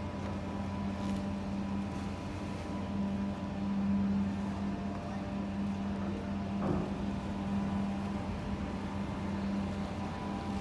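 Steady low hum of a large cruise ship's engines and machinery, holding one deep tone with fainter higher tones above it. A brief, fainter sound cuts across it about two-thirds of the way through.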